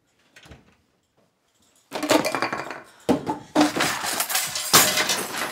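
Things swept off a dining table by hand, a tissue box among them, crash and clatter onto the floor. It starts suddenly about two seconds in and runs as a dense string of knocks and clinks, with heavier crashes about three, three and a half and five seconds in.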